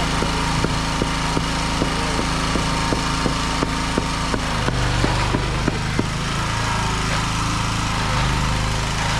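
A small engine running steadily. A sharp tick repeats almost three times a second for the first six seconds, and about halfway through the engine note drops and changes.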